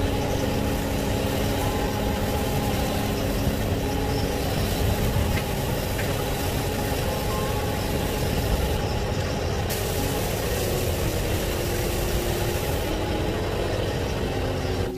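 A motor engine running steadily, a loud even noise with a low rumble that cuts in and out abruptly.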